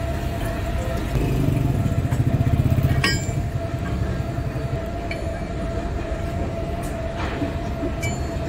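A motor running steadily: a low rumble with a constant tone above it, throbbing louder from about one to nearly five seconds in. A single sharp click about three seconds in.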